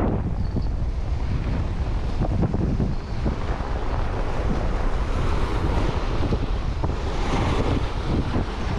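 Wind buffeting the microphone over choppy bay water washing and splashing against a rock riprap shoreline, with a louder splash of surf near the end.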